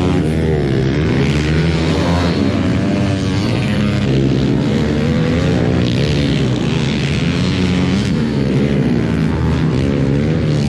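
Pit bike engine revving hard under racing load, its pitch rising and falling again and again as the rider works the throttle through jumps and corners, with wind rush over the microphone.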